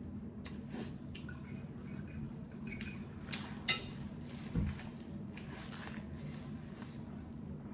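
Close-miked eating: slurping a mouthful of noodles, then chewing. A little past the middle, metal cutlery clinks sharply on the plate, followed shortly by a dull knock.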